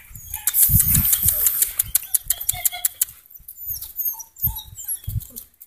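Bernese mountain dog puppies running on stone paving: a quick run of sharp clicks from their claws about half a second in, with light thuds, then several short high squeaks later on.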